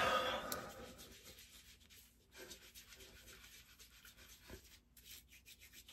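Menthol pre-shave cube being rubbed over wet facial skin: soft, faint rubbing, louder in the first second and then scattered light strokes.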